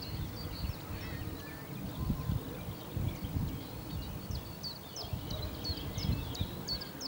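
Wind buffeting the microphone with an uneven low rumble, and a songbird repeating short, high, quickly falling notes, most busily in the last couple of seconds.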